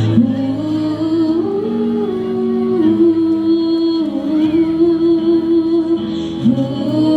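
School choir of young voices singing slow, long-held notes without clear words, moving to a new pitch every second or two.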